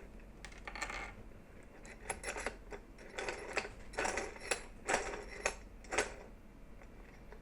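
A series of light clicks and metal clinks, about a dozen in a few seconds, as a small ESC circuit board is handled and set into a small bench vise.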